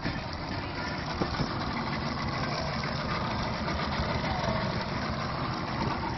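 Johnson V6 Ocean Runner two-stroke outboard motor running steadily, a low pulsing engine note.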